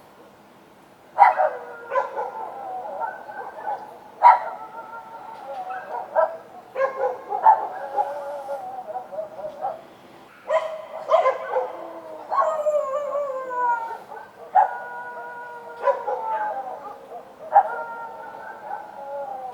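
Street dogs barking at night, sharp barks running into long drawn-out howls, about ten times, with falling whining calls near the middle.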